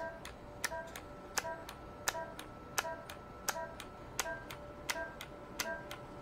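INTRAcel radiofrequency microneedling handpiece firing pulse after pulse as it is stepped across the face: each pulse is a sharp click with a short electronic beep, about every 0.7 seconds in an even rhythm.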